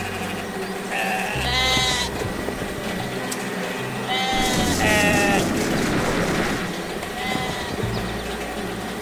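Sheep bleating several times in short, wavering calls, over background music with a low bass line.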